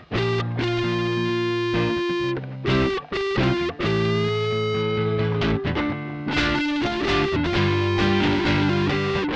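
Background music with electric guitar.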